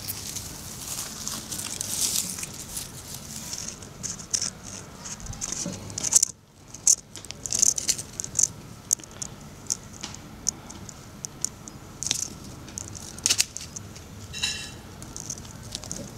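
Tabby-and-white cat scuffling and pouncing on dry leaves and dirt: rustling, crackling leaves and scratching paws, in irregular quick scuffles.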